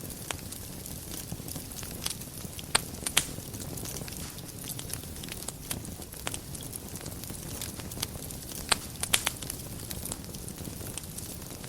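Wood fire burning in a fireplace: a steady low rumble and hiss with scattered crackles and a few sharp pops, a small cluster of them near the end.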